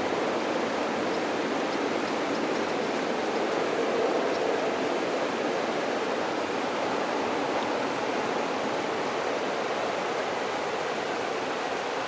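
Shallow river water rushing and babbling over a stony riverbed, a steady, even flow with no break.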